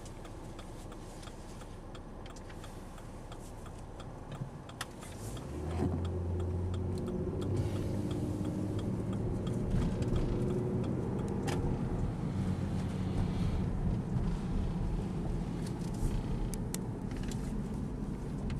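Car interior: a turn signal clicking steadily over a low engine hum, then about five seconds in the engine note rises and grows louder as the car pulls away and picks up speed, with road noise continuing.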